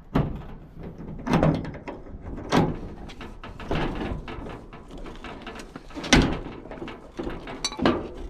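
Claw hammer striking and working at a small steel padlock: a string of irregular metal clanks and knocks, with about five loud blows spaced a second or more apart.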